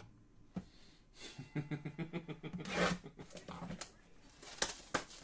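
A low, wordless voice humming for about two seconds, with a breathy sound near its end, and several sharp clicks and snaps of trading cards and packs being handled.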